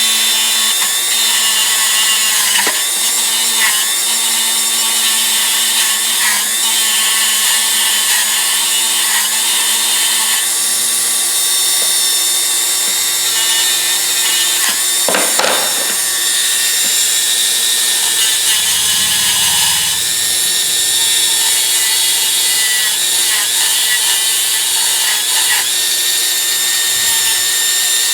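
A small high-speed power tool fitted with an abrasive fiber wheel runs steadily while grinding and cleaning steel pliers. Its pitch dips briefly again and again as the wheel is pressed into the work, with a louder scraping burst about halfway through.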